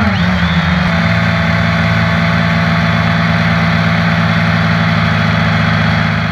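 Multirotor drone's electric motors and propellers running steadily, picked up by the camera on the drone itself: a low hum with a thin high whine on top. The pitch shifts briefly at the start as the motors change speed, then holds steady.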